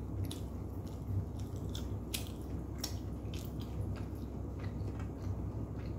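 Close-up chewing of soft kubos flatbread, with many small, irregular mouth clicks and hands tearing the bread, over a steady low hum.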